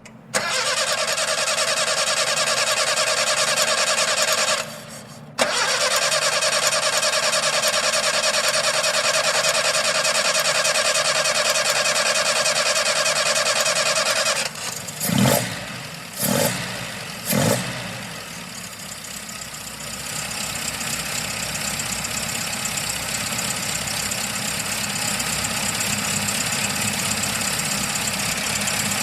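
Car engine that is hard to start: the starter cranks for about four seconds, stops briefly, then cranks again for about nine seconds without catching. The engine then coughs three times and catches, settling into a steady idle.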